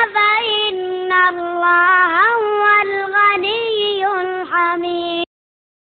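A child's voice chanting Quran recitation in the melodic tajweed style, with long held notes that bend and ornament in pitch. It cuts off suddenly about five seconds in.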